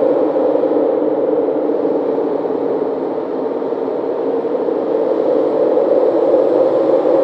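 A steady droning noise, strongest in the low-middle range, with no distinct strokes or tones; it dips slightly about three seconds in and then swells back.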